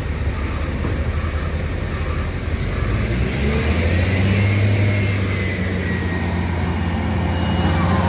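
Heavy diesel engine of a concrete mixer truck running steadily, its low hum growing louder about three seconds in. A faint high whine rises and falls in the middle.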